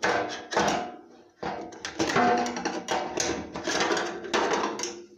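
A fuel tank sender unit being worked out of the tank opening: repeated metal knocks and clatter as it strikes the tank and its baffles, each knock ringing on in the hollow tank.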